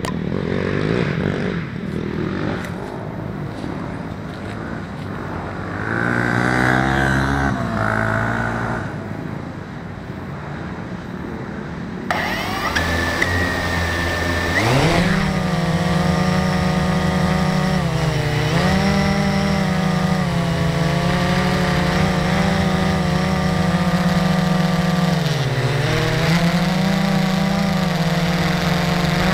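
Small drone's electric motors and propellers spinning up about halfway in, after a short high tone, then running with a steady buzzing hum as it lifts off and climbs, the pitch dipping briefly twice with the throttle.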